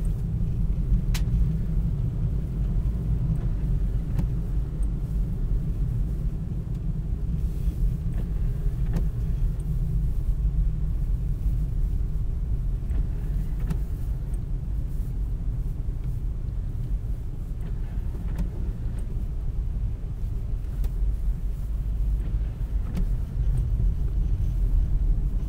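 Steady low rumble of a four-wheel-drive vehicle driving slowly on a snow-covered road, heard from inside the cabin. A few faint ticks sound over it.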